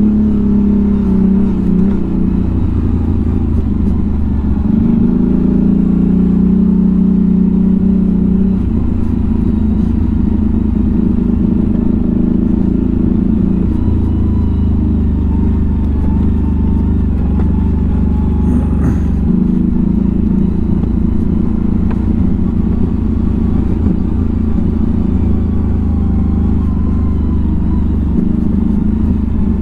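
A 1000 cc V-twin ATV engine runs at low, shifting revs down a rough forest track. Its note steps up and down several times, with some clatter from the machine jolting over the uneven ground.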